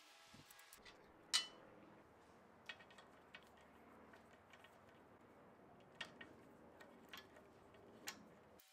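A few scattered, sharp metallic clicks from a socket ratchet and extension working a bolt under a vintage Craftsman scroll saw's table, the loudest about a second and a half in, over a faint steady hiss.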